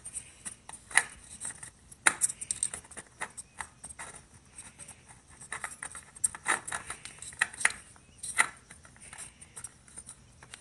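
Irregular light clicks, taps and scrapes of hands handling a new spin-on motorcycle oil filter as it is set onto its mount, with a few sharper clicks among them.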